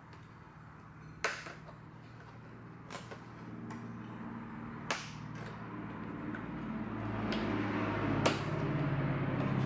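Plastic retaining clips on a Honda Civic's windshield cowl panel being pried loose, popping free in four sharp snaps a second or two apart, the last the loudest. A low steady hum grows louder underneath in the second half.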